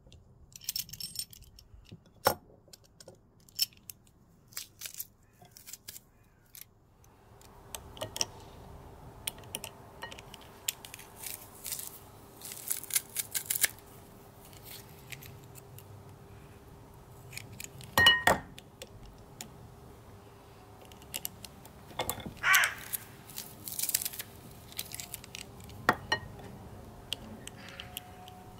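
Metal garlic press clicking and clacking as peeled garlic cloves are loaded and squeezed through it, with scattered light clicks of cloves being handled. Two louder, ringing metal clinks stand out partway through.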